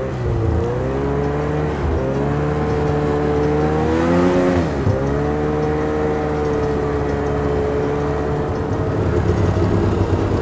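Snowmobile engine running steadily on the move. Its pitch rises, dips sharply and comes back about five seconds in, as the throttle is eased off and opened again.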